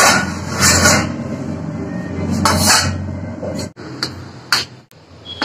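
Stainless-steel plates and utensils clattering and scraping as they are handled at a steel dish rack, then a few sharp clinks of a spoon on a steel plate in the last two seconds.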